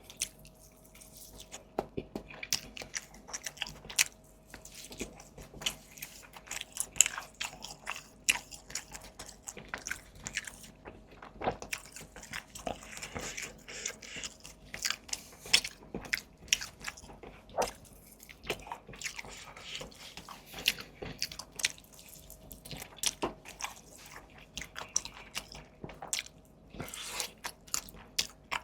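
Close-miked mukbang eating: irregular crunchy bites and chewing, several sharp crackles a second, from a meal of sweet and spicy chicken thighs and sesame curry with vegetables.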